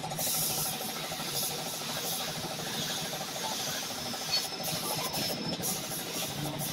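Compressed air hissing in a paint shop, as from a paint spray gun, starting abruptly and breaking off briefly a few times in the second half, with a motor running steadily underneath.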